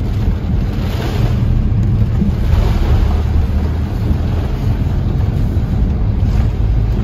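Heavy rain beating on a car's windshield and body, heard from inside the cabin, over the steady low rumble of the car driving on a wet road.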